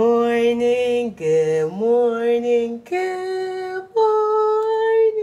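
A woman singing a wordless melody in long held notes, sliding up and down between them.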